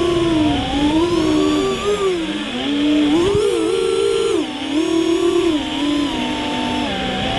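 FPV quadcopter motors whining, the pitch rising and falling as the throttle changes.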